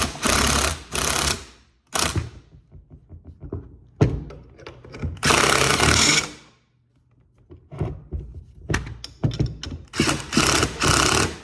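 Bolts being cranked in with a hand tool: about four bursts of rasping tool noise, each about a second long, with knocks and clinks of metal parts between them.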